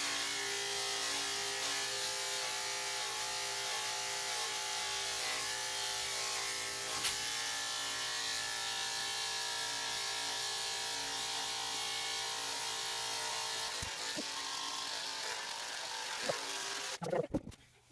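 Electric dog grooming clippers running with a steady buzz as they cut through a small dog's coat, then cutting off near the end.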